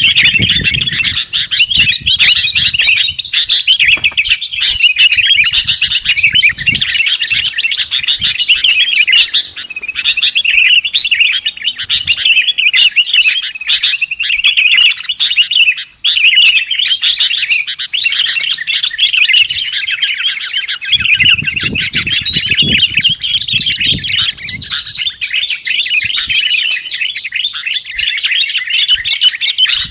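Sooty-headed bulbuls (kutilang) chattering and calling continuously: a dense run of quick, high chirps with no pauses. This is the kind of bird-lure (pikat) recording played to attract wild birds.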